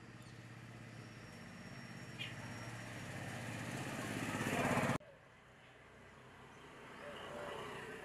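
Engine of a passing motor vehicle, growing steadily louder for about five seconds and then cutting off abruptly, leaving quiet outdoor ambience. A brief high chirp sounds about two seconds in.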